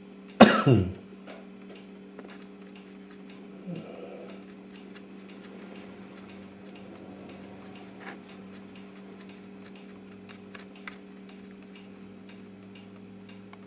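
Steady low hum with faint, scattered ticks and clicks of small handling, and one short loud sound falling in pitch about half a second in.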